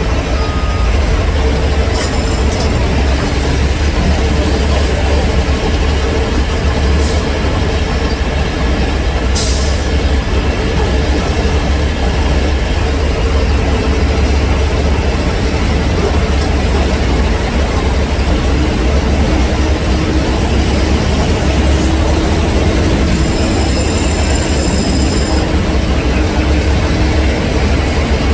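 Heavy diesel truck engine running steadily with a deep, continuous rumble. A backup alarm's beeps stop within the first second, and a short air hiss comes about ten seconds in.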